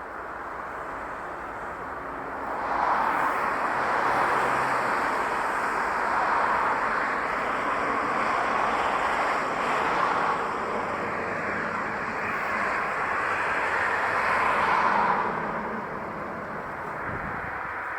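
Jet aircraft engine noise at an airport: a steady rushing sound that swells about three seconds in and eases off near the end.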